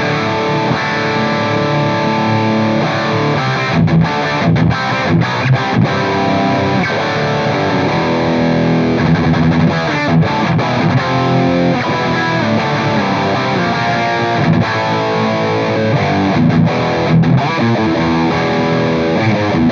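Electric guitar played through a Soldano SLO pedal with high-gain distortion, riffing with a few short stops between phrases. The pedal's diff switch is engaged for a deeper, boomier low end, with treble and presence turned up.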